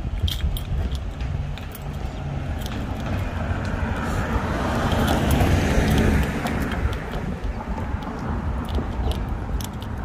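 A car passing by: tyre and engine noise swells to a peak about five to six seconds in, then fades away. Under it runs a steady low rumble with scattered light ticks.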